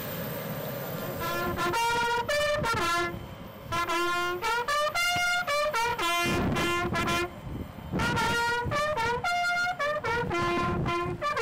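A military bugle call played on a brass horn for a guard of honour: three phrases of short and held notes stepping up and down, starting about a second in, with brief pauses between the phrases.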